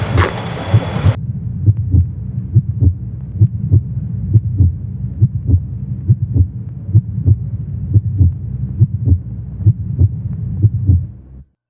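Heartbeat sound effect: a steady run of paired low thumps, lub-dub, laid over the picture as suspense. It starts about a second in, replacing the outdoor sound abruptly, and cuts out briefly near the end.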